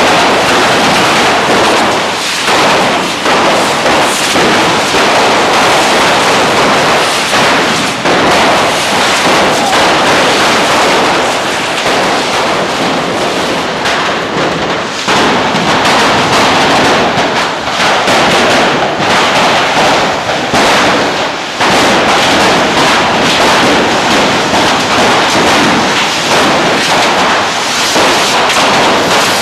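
Many cordà ground rockets (carretillas fixed on canes) hissing and whooshing at once as they spew sparks, in a dense continuous din with frequent sharp cracks and bangs.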